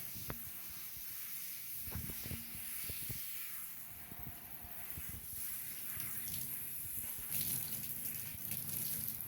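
Hand-pumped pressurised portable shower spraying water from its shower head in a steady hiss, with a few light knocks in the background.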